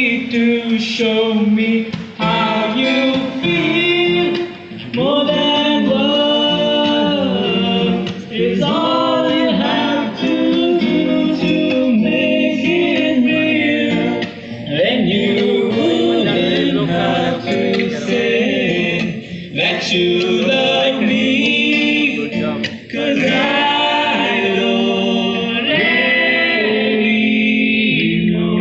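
A song performed live by a small acoustic band: singing over acoustic guitar.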